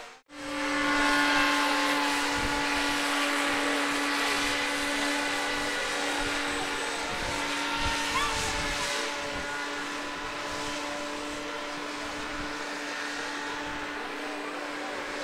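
Radio-controlled model watercraft running under power: a steady motor note holding one pitch over a rushing hiss. It cuts in after a momentary gap right at the start.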